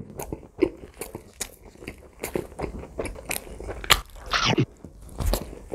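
Close-miked ASMR eating: biting into and chewing a folded slice of pizza, a string of irregular crunches and mouth clicks.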